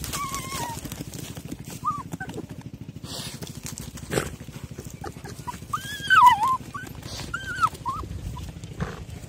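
Dogs whining in short, high, wavering calls while they dig at a field-mouse burrow, the loudest about six seconds in. Under the calls run a rapid low pulsing and scratches of paws in the soil.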